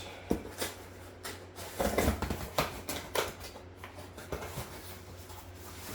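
Boxed engine parts and their packaging being handled: scattered light clicks, taps and rustling.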